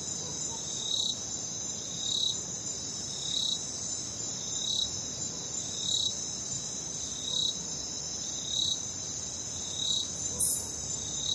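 Night crickets chirping in a continuous high trill, with another chirping call pulsing about every second and a quarter. A short, higher squeak cuts in once near the end.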